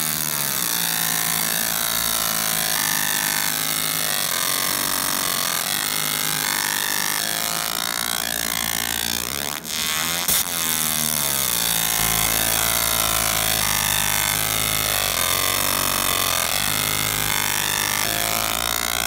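Galvo laser marker engraving a hatch fill into a metal plate: a loud, continuous buzzing with shifting, sliding whine tones as the scanner mirrors trace the fill lines. It breaks off briefly just before ten seconds in, then carries on.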